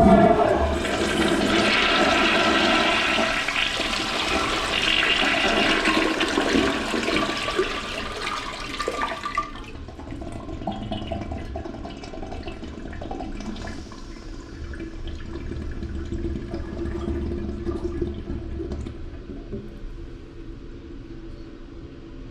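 Toilet flushing: a sudden loud rush of swirling water that lasts about nine seconds, then drops to quieter running water for the rest.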